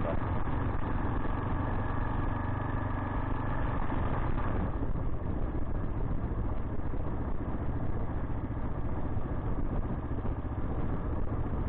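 Kawasaki KLR 685 dual-sport motorcycle's single-cylinder engine running steadily under way, heard from on the bike among road and wind noise; the engine note changes about four to five seconds in.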